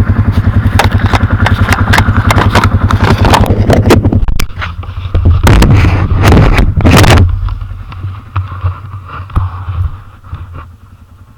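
Can-Am ATV engine running close to the microphone with a rapid, even pulse, overlaid with clicks, knocks and scrapes from the camera housing being handled and mounted. After about seven seconds the sound drops to a much quieter, steady low hum.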